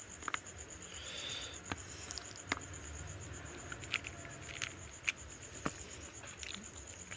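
Close-miked eating sounds: scattered soft clicks and smacks of chewing and of a hand mixing curry and rice, with a brief hissy swish about a second in. A faint steady high-pitched whine runs underneath.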